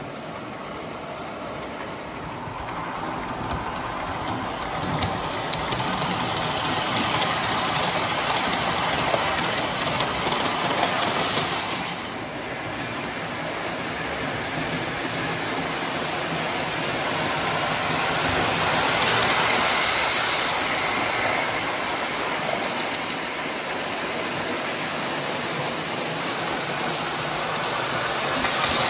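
O gauge model train rolling on three-rail tubular tinplate track, a steady rattling rumble of wheels on the rails that swells each time the train runs close by. It drops off abruptly about twelve seconds in, then builds again.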